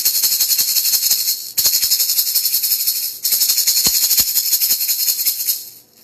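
A pair of maracas shaken rapidly in a dense, continuous rattle. It comes in three runs, with brief pauses about a second and a half and about three seconds in, and dies away near the end.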